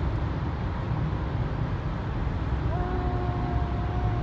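Steady low rumble of tyre, engine and traffic noise heard from inside a car driving through a road tunnel. Near the end a single steady tone sounds for about a second and a half.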